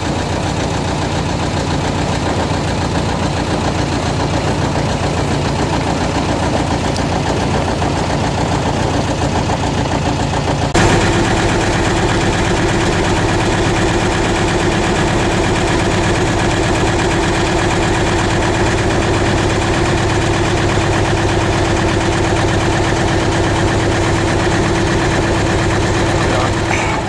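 Boat engine running steadily under way, a continuous drone. About ten seconds in the sound changes abruptly to a slightly louder, steadier hum.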